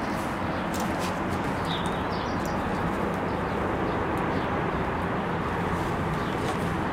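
Steady outdoor background noise with a few short bird chirps about two seconds in, and scattered faint clicks.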